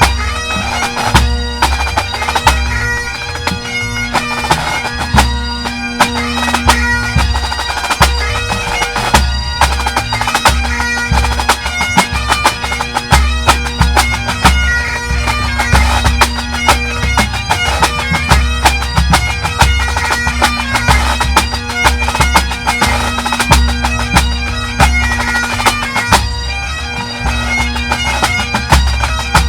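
Pipe band playing: Highland bagpipes sound a steady drone under a fast, ornamented chanter melody, with snare and bass drums beating throughout.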